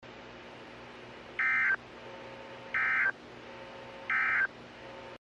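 Three short bursts of Emergency Alert System SAME end-of-message data tones, the digital screech that signals the end of an alert message. They come about a second and a half apart over a steady radio hiss, which cuts off suddenly near the end.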